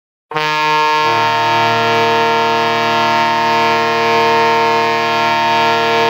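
Arena goal horn sounding one long, steady blast of several tones at once, starting about a third of a second in.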